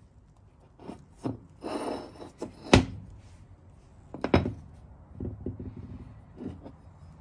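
Rusty steel head of an Alltrade roller-bearing splitting maul handled on a bench: a few hard clunks as it is set down and turned over, with scraping as it slides on the bench top. The loudest knock comes a little under three seconds in, and softer rubbing follows near the end.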